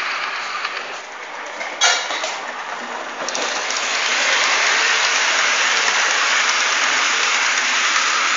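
Model train rolling along the layout's track: an even rattling hiss of wheels on rails that gets louder about three seconds in as it runs close by through the station points, with one sharp click near two seconds in.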